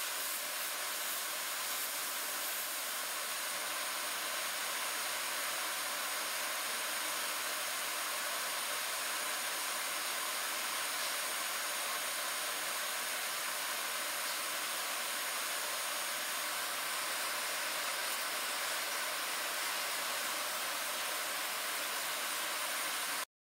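Steady, even hiss of running shop machinery with a faint high whine over it, cutting off suddenly near the end.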